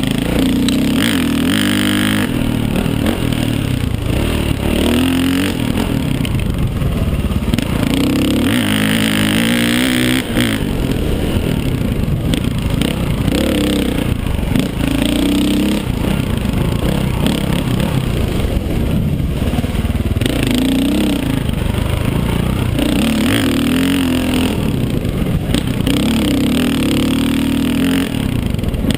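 KTM 525 dirt bike's single-cylinder four-stroke engine under way, its note rising and falling again and again as the throttle is worked through the gears, heard from the rider's helmet.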